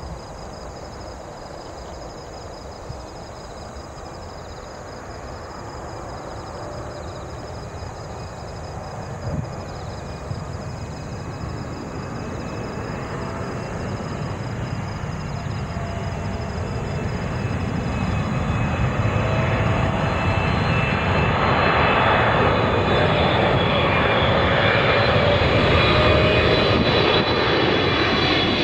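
Boeing 777-300ER airliner on final approach with its GE90 turbofans, its jet noise growing steadily louder as it closes in and passes low overhead. Whining engine tones come in during the second half and bend downward near the end.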